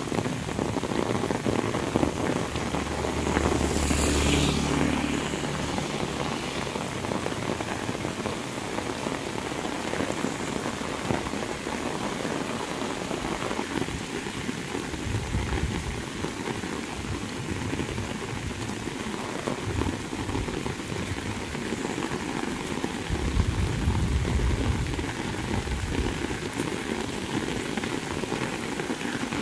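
Heavy tropical rain falling steadily on a paved road and vegetation, a dense, even hiss. A low rumble swells briefly about four seconds in, and low buffeting comes and goes later on.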